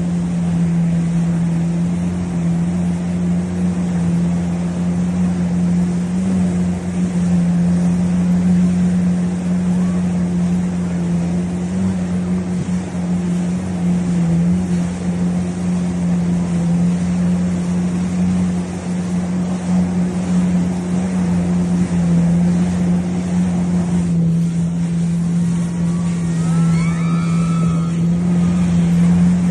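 Motorboat engine running steadily at speed, with wind and water noise over the microphone. A few brief high gliding sounds come near the end.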